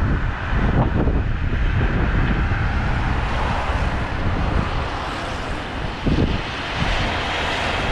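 Gale-force wind of over 50 mph buffeting the microphone: a loud, continuous rumble of wind noise that rises and falls with the gusts.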